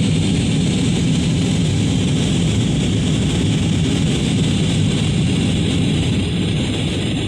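Steady cabin noise of a passenger jet, the engines and airflow running as a constant deep rush with a hiss above it.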